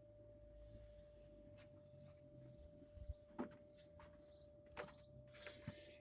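Near silence, with a faint steady hum and a few faint knocks and clicks in the second half.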